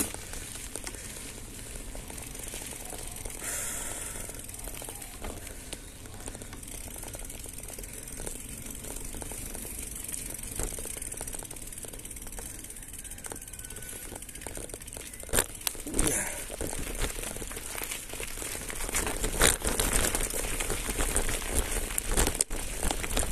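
Mountain bike rolling downhill, heard through a handlebar-mounted phone: a steady rustling noise with scattered clicks and rattles. Near the end it grows louder and rougher as the tyres reach a dirt track.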